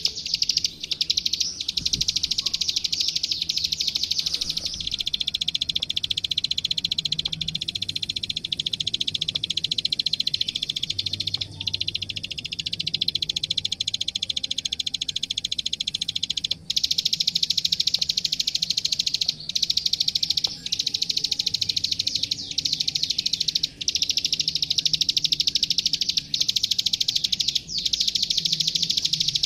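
Prinia (the klik-klik or ciblek sawah) singing: a continuous, very rapid, high-pitched clicking trill, broken by a few short pauses.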